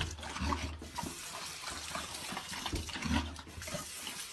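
Steady sound of running water, with small scattered splashes and knocks.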